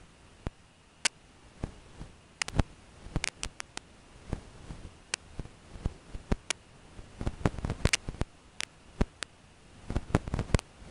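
Scattered sharp clicks and ticks at irregular intervals, bunched into quick clusters past the middle and near the end, over a faint steady hiss.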